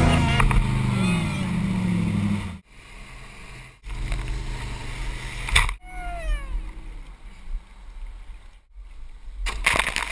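A person's yell, falling in pitch, about six seconds into the rope-swing ride, then a loud splash of water near the end as the swinger drops into the river.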